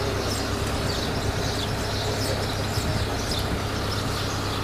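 Steady low rumble of an idling engine, with scattered high bird chirps above it.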